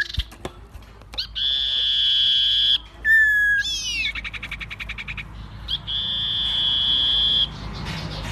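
Songbird singing: long, steady high whistled notes about a second and a half each, broken in the middle by short downward-sliding notes and a fast rattling trill.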